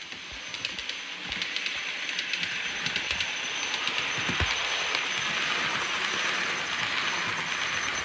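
Bachmann OO gauge Midland Blue Pullman model train running past on the layout: a steady rush of wheels and motor that builds about a second in, with a run of rapid clicks over the rail joints. A thin high-pitched whine runs through it, from a dry motor bearing in the rear power car.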